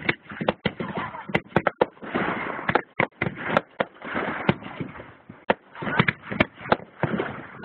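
Aerial fireworks bursting overhead: a rapid, irregular barrage of sharp bangs, many of them within the span of a few seconds, with a continuous noisy rumble between them.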